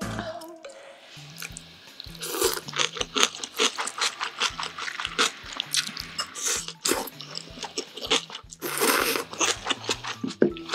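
Close-miked eating of spicy cold naengmyeon noodles in broth: many wet smacking clicks of chewing, broken by a few long slurps of noodles, three of them louder than the rest.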